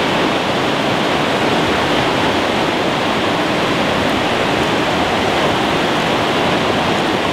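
Fast creek water rushing steadily over shallow riffles, an even, unbroken wash of water.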